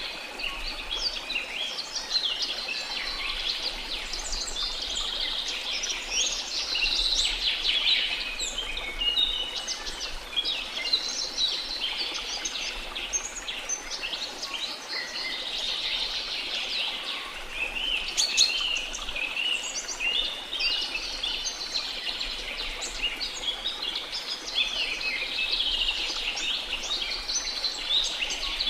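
Dense rainforest bird chorus: many birds chirping and trilling at once, calls overlapping continuously, over a faint steady hiss.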